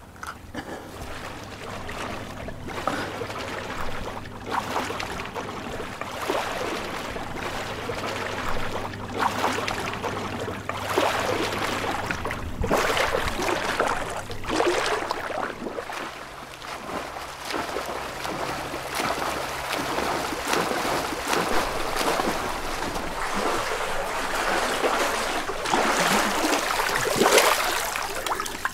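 Pool water splashing and sloshing in irregular surges, as of someone swimming.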